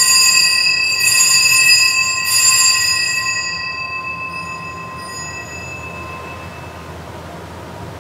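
Altar bell rung three times, about a second apart, at the elevation of the host during the consecration. Each stroke sets off a cluster of clear metallic tones that ring on and fade slowly in the church's reverberation.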